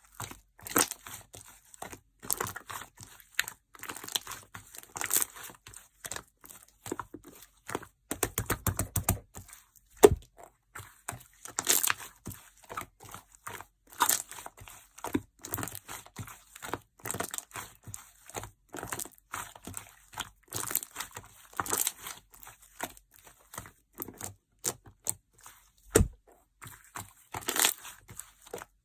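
Crunchy sherbet-style slime being squeezed, pressed and stretched by hand, giving a steady run of irregular crackling, crunching and small pops. There is a sharper pop about ten seconds in and another a few seconds before the end.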